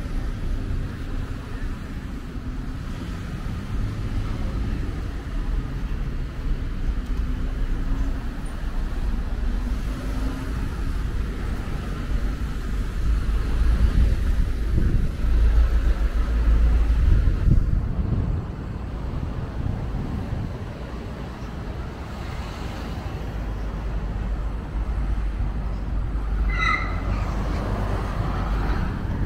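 Street traffic ambience: cars running past in a steady low rumble, louder as a vehicle goes by about halfway through. A few short high chirps come near the end.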